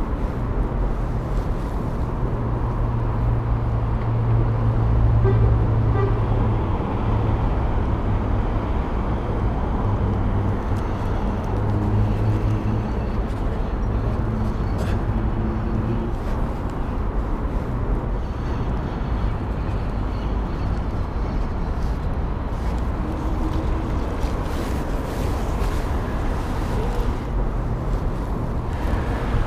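Steady city traffic noise, with a low engine hum that holds through roughly the first half and then fades.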